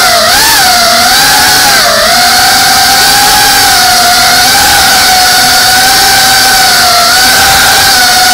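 GEPRC Cinelog 35 cinewhoop's motors and ducted propellers whining in flight, picked up by the camera on the frame. The pitch wavers with throttle over the first two seconds, then holds fairly steady with a brief dip about seven seconds in.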